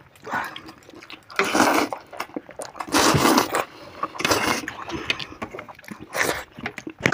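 Noodles being slurped and chewed: a series of separate wet slurps, the longest and loudest about three seconds in.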